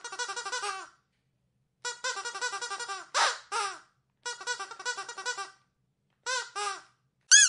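Dog squeaky toy being squeezed in quick runs of short squeaks, several a second, broken by short pauses. About halfway through comes one longer, louder squeak, and near the end two separate squeaks and then a sharp, loud one.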